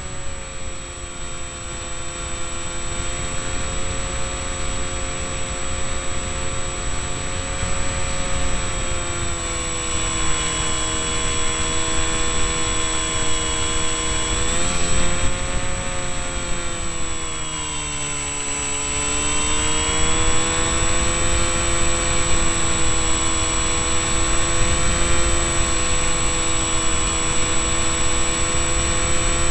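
Electric motor and propeller of an RC delta-wing model whining in flight, heard from a camera on board, with wind rush over the microphone. The pitch wavers, dips about two-thirds of the way through and rises again as the throttle changes.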